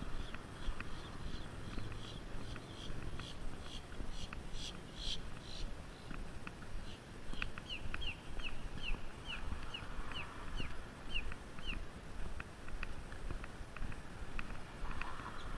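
Footsteps on a sidewalk, ticking about every half second, with a bird calling a quick run of about a dozen down-slurred chirps in the middle, over a low rumble of wind and distant traffic.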